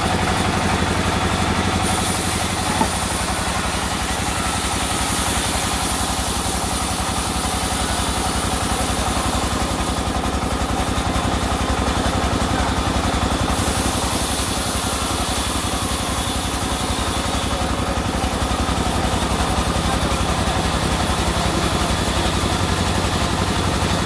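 The engine powering a band sawmill, running steadily at an even idle. A high hiss comes in twice over the running engine.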